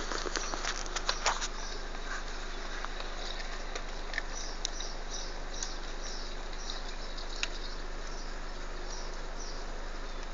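Scattered light taps and clicks over a steady hiss, thickest in the first second and a half, then sparser small high ticks.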